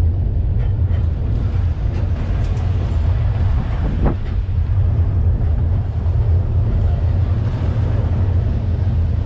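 Open-air tour vehicle driving along at steady speed: continuous low engine and road rumble.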